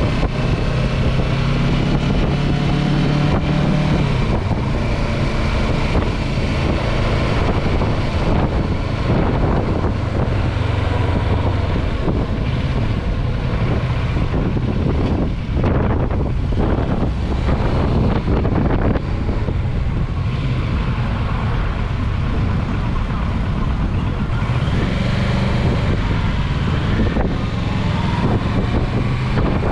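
Motorcycle engine running while riding in traffic, with wind rumbling on the microphone. Near the end the engine pitch rises as the bike accelerates.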